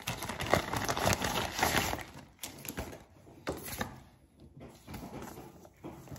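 Plastic mailer bag crinkling and rustling as it is pulled open, loudest for the first two seconds, then a few lighter rustles and clicks as the contents are handled.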